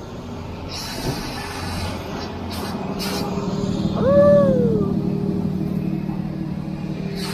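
A vehicle engine running steadily with a low hum. A few short hisses come in the first few seconds, and about four seconds in there is one brief tone that rises and then falls.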